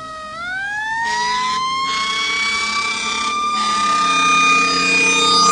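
A siren wailing. Its pitch climbs over the first two seconds, then holds high and steady, with a low hum underneath.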